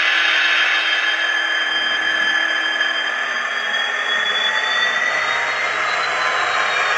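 N gauge Dapol Class 66 model locomotive running: a steady whirring hiss with thin whines slowly rising in pitch, while a higher one falls and crosses them about six seconds in.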